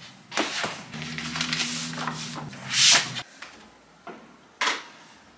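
Handling noises at a desk: rustles and light knocks as a plastic folder, papers and sticky notes are handled. The loudest rustle comes about three seconds in and a shorter one near the end. A steady low hum runs for a couple of seconds and cuts off suddenly.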